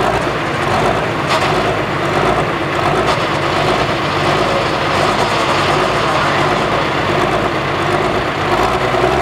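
Turbocharged diesel engine of an International limited pro stock pulling tractor running steadily at the end of its pull.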